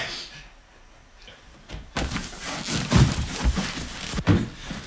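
A closet door being handled and a bag pulled out: a run of thuds and rustling that starts about two seconds in, breaks off briefly, then picks up again near the end.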